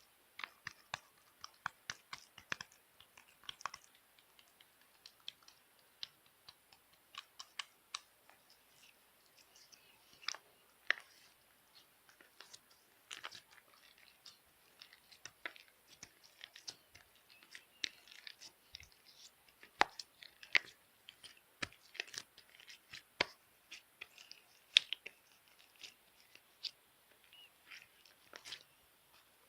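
Slime being squeezed and pressed by hand, giving irregular crackling clicks and small pops.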